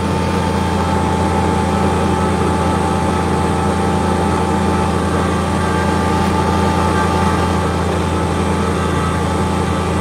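Kubota BX23S sub-compact tractor's three-cylinder diesel engine running steadily, heard from inside the enclosed cab, with a constant low drone and a steady whine above it from the front-mounted snowblower.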